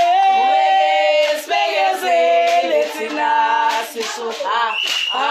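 Several women singing together without instruments, holding long notes in close harmony.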